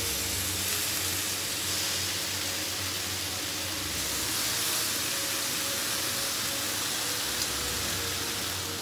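Sauce sizzling steadily in a hot frying pan full of fried pork pieces and vegetables, with a low steady hum underneath.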